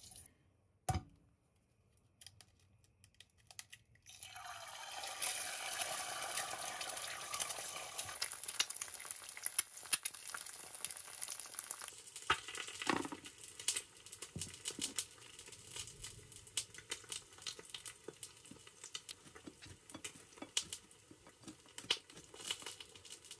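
Fat sizzling in a frying pan, starting about four seconds in and swelling to a steady hiss. Later, many small clicks and scrapes of a knife and fork cutting and mashing avocado on a plate, over the quieter sizzle of the pan.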